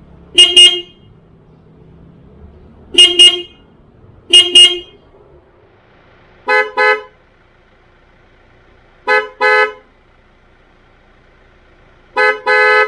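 A Hyundai Accent's horn sounded in quick double toots: three pairs from the factory horn, then, after a cut about halfway through, three pairs from the newly installed MXR M-75 Super Tone horns, in a clearly different tone.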